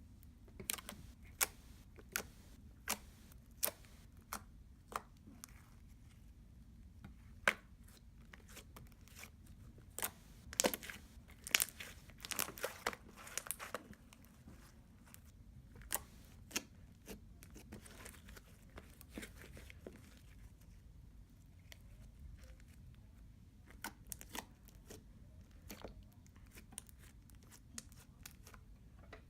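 Fingers poking and pressing slime, giving irregular sticky clicks and pops that come thickest in a cluster about a third of the way in.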